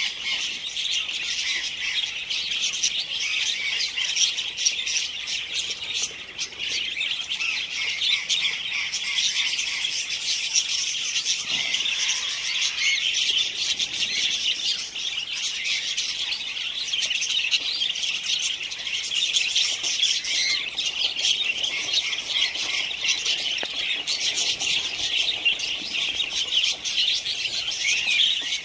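A flock of budgerigars and cockatiels chattering without pause: many short, high, overlapping calls at an even level.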